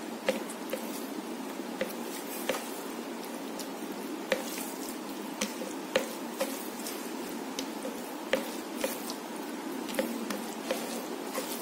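Fingers mixing rice with chicken curry gravy on a ceramic plate: soft wet squishing with many short, sharp clicks at an irregular pace.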